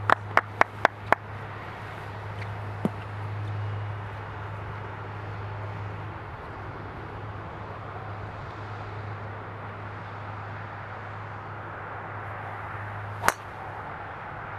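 A few quick sharp clicks near the start, then steady outdoor ambience with a low hum. Near the end comes a single sharp crack with a short ringing tail: a driver striking a golf ball off the tee.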